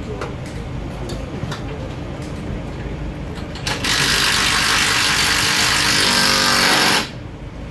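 A power tool on the rally car's running gear runs in one loud burst of about three seconds, starting about halfway through and cutting off suddenly, over a low steady rumble and small clinks of hand tools.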